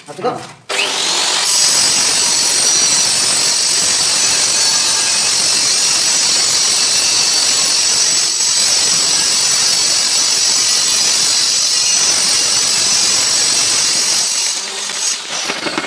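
A power tool running steadily: a loud, hissy, high-pitched whine that starts abruptly about a second in and stops near the end.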